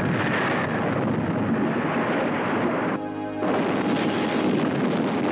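Film trailer soundtrack: music under a loud, continuous rushing roar of sound effects, which drops back briefly about three seconds in.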